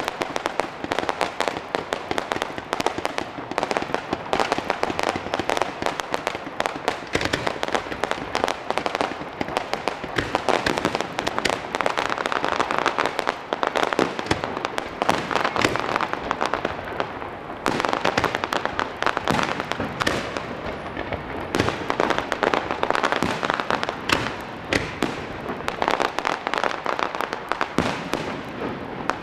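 Fireworks display: a dense, continuous barrage of shell bursts, bangs and crackling pops, many a second, with no pause.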